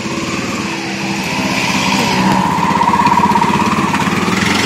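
Auto-rickshaw's small single-cylinder engine running with a fast, even pulsing beat, growing louder as it pulls away.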